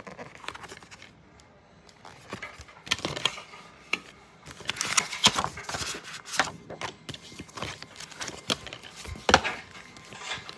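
Handling of an open plastic DVD case and its glossy paper inserts: paper rustling and shuffling with irregular plastic clicks and knocks, the sharpest click late on.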